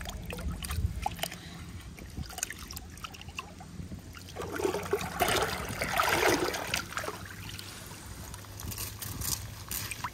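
Shallow water sloshing and trickling as a mesh fish trap is handled in it, with a louder swishing stretch for a couple of seconds around the middle.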